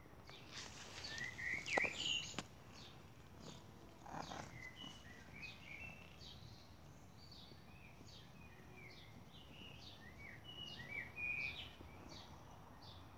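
Small birds chirping, with many short high calls scattered throughout. About one to two seconds in there is a louder burst of rustling and scraping, with a few sharp clicks.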